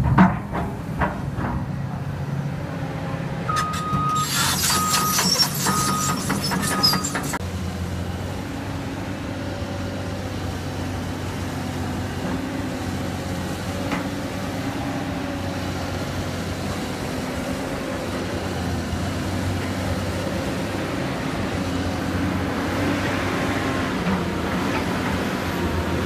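Excavator's diesel engine running steadily. A few seconds in, four short high beeps sound together with a spell of rapid clanking.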